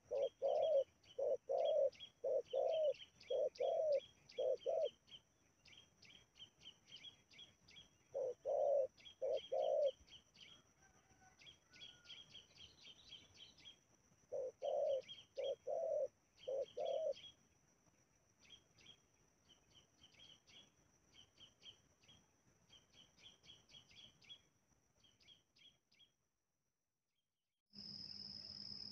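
Spotted dove cooing in rhythmic series of low notes, about two a second: a long run at the start, then shorter bouts of three and four notes. Rapid high chirping and a steady high-pitched hum run underneath, and near the end a louder steady high insect-like drone takes over.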